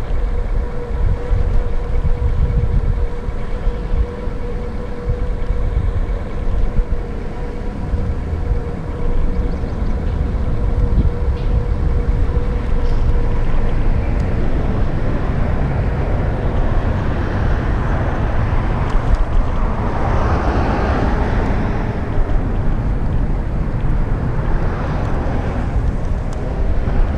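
Wind buffeting the microphone and road rumble while riding a Bird electric scooter, with a thin steady whine that fades out about halfway through. A broader rushing hiss swells for a few seconds about two-thirds of the way in.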